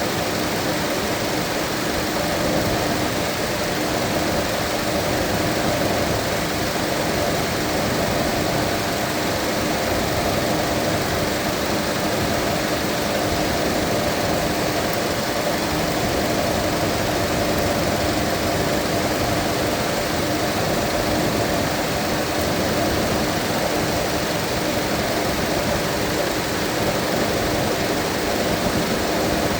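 Mazda 2.5-litre engine idling steadily, with an even hum, while its cooling system is bled of trapped air (coolant burping).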